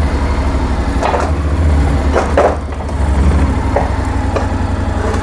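Motorcycle engine idling with a steady low pulse as the bike rolls onto a wooden scaffold-plank turntable. There is a wooden knock about a second in and a louder clunk a little after two seconds as the wheel rides onto the plank, then a couple of lighter clicks.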